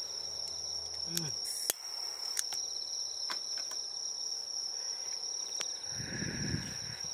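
Insects trilling steadily at night, one continuous high-pitched song, with a few faint clicks and a brief low rumble about six seconds in.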